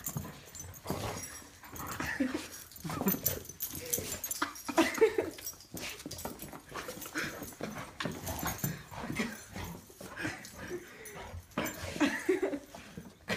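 Excited dog whining in repeated short cries that bend up and down in pitch.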